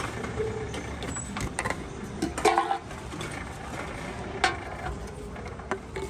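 Tomra T-90 reverse vending machine running, its conveyor carrying a rejected drink can back out of the feed chute. A cluster of knocks and rattles about two and a half seconds in, and a single sharp click a couple of seconds later.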